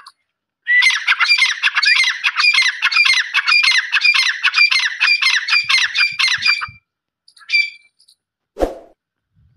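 Grey francolin (teetar) calling a loud, fast series of repeated notes, about four a second, for some six seconds. A short call follows about a second later, and a single dull thump comes near the end.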